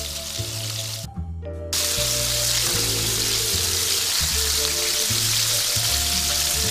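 Food frying in hot oil, a steady sizzle over background music. The sizzle cuts out briefly about a second in, then comes back louder.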